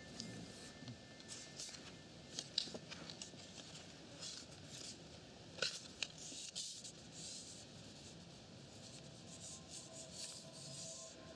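Faint, scattered scratching and rubbing noises with sharp clicks, strongest a few seconds in. Faint steady tones come in near the end.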